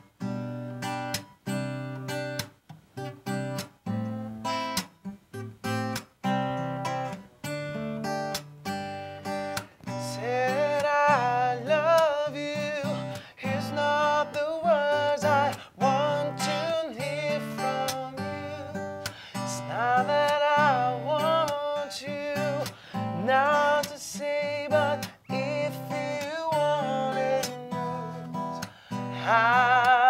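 Acoustic guitar strummed in a steady rhythm. A man begins singing over it about ten seconds in.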